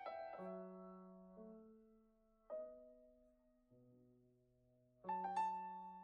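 Background music: slow, soft piano, with single notes and chords struck about once a second and left to ring out and fade.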